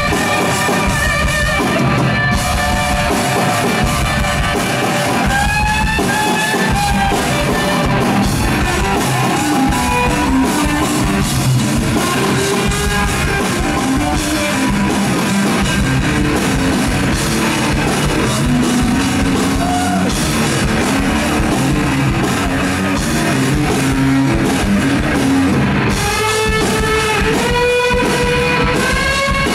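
Live rock music, loud and steady: an electric guitar and a drum kit playing together, with cymbals.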